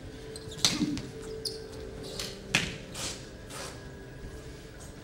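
Sounds of a martial artist working through a kung fu form on a hard, glossy floor: several sharp slaps and stamps of hands and shoes, with uniform swishes between them. The loudest comes under a second in. A faint steady hum runs beneath.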